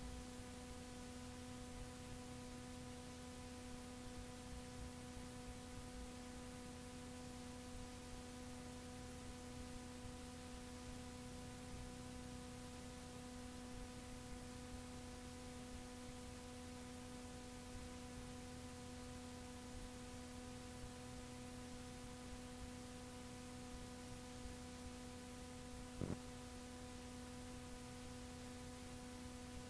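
Blank stretch of a cassette tape played back: steady tape hiss with a low electrical hum, and one brief click near the end.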